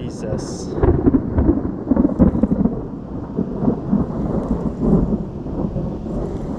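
Thunder rumbling, rolling and uneven, with rain falling during a thunderstorm.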